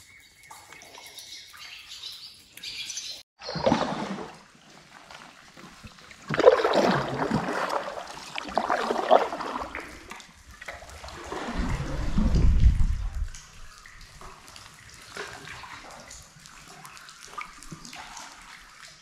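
Water splashing and gurgling beside a canoe in several bursts, as from paddle strokes. A low rumble comes in about twelve seconds in.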